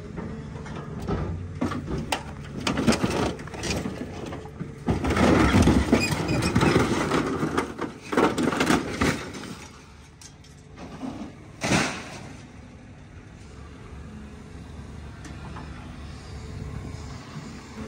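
Hydraulic excavator bucket crushing a rusted classic car body: sheet metal crunching and scraping in a string of heavy impacts, loudest a few seconds in. One sharp bang about twelve seconds in, then the excavator's engine running steadily.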